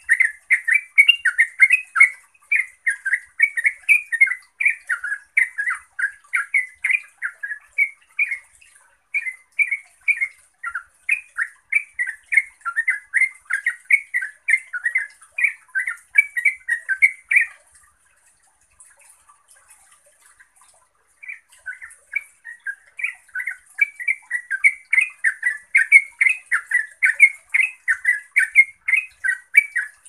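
Yellow-vented bulbul (trucuk) singing its rapid, chattering ngeropel song: a long run of quick bubbling notes that breaks off for about three seconds a little past halfway, then starts again.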